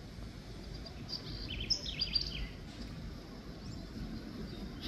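Outdoor ambience: a steady low rumble, with a bird chirping several quick times between about one and two and a half seconds in.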